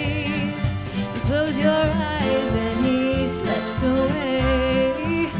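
Live band playing a country-style song, with a singer's voice wavering over the accompaniment.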